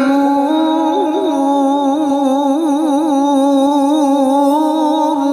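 Male qari's voice in melodic Quran recitation (tilawah), holding one long high note with a wavering ornamented pitch, amplified through a microphone; the note breaks off at the end.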